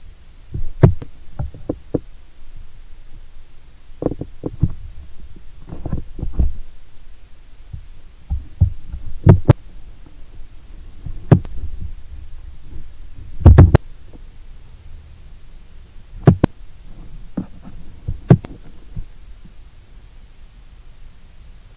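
Irregular soft thumps and sharp knocks, a dozen or so a second or two apart, with a low rumble between them: handling noise from a handheld camera being moved close to the microphone.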